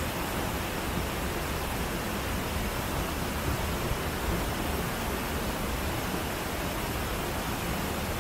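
Waterfall: falling water rushing steadily as an even, unbroken noise, with no changes in level.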